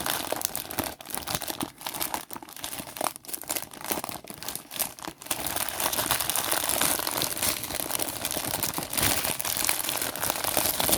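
Plastic packaging of a diamond-painting kit crinkling as it is handled, scattered at first and becoming a denser, continuous crinkling about halfway through.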